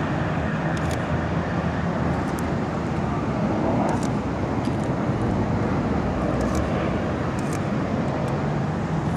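Steady noise of downtown city traffic, with a faint low hum and a few faint high ticks.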